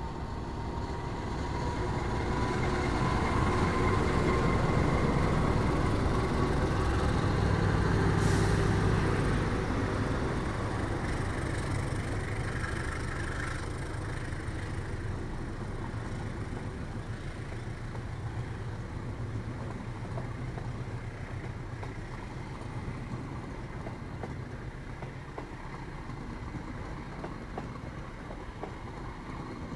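Road traffic engines running, motorcycles and cars, loudest from about two to nine seconds in with a faint whine slowly rising in pitch, then settling to a lower steady rumble.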